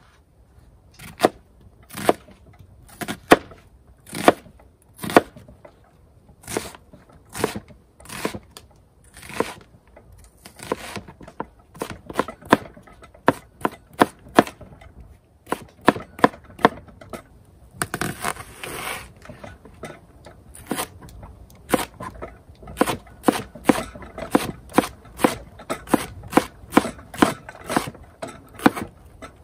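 Chef's knife chopping onion and then green onion on a plastic cutting board, each cut a sharp knock. The strokes come about one a second at first and quicken to several a second near the end, with a brief scrape about eighteen seconds in.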